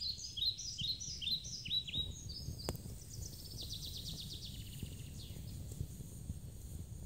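A songbird singing a run of quick, down-slurred chirps, then a fast trill about three seconds in, over a low steady rumble of background noise.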